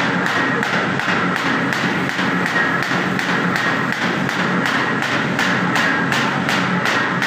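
Paper bag making machine running: a fast, even clatter of about four strokes a second over a steady mechanical hum.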